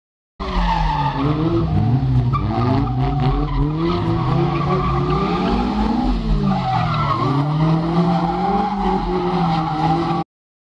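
Engines of Seven-style open sports cars revving up and down again and again through tight manoeuvres, with tyres squealing in the turns.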